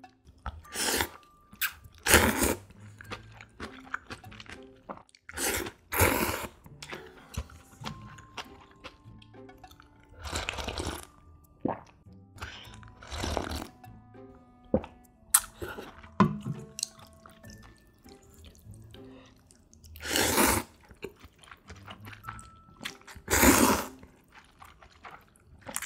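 A person slurping thin wheat noodles in broth, close up. About eight loud slurps come a few seconds apart, with quieter mouth sounds and small clicks between.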